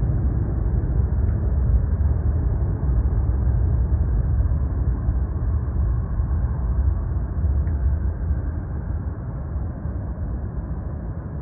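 Jet airliner's engines rumbling, a deep steady roar that slowly fades toward the end.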